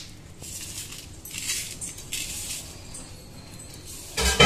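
Handling of a roasted toddy palm fruit on a steel plate: its charred, fibrous husk rustles and scrapes against the metal, with light clinks, and there is a louder knock about four seconds in.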